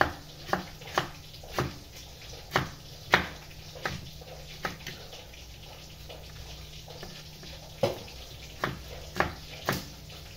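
Kitchen knife chopping carrots on a wooden cutting board: single sharp knocks, roughly one or two a second, with a pause of a few seconds in the middle before the chopping resumes.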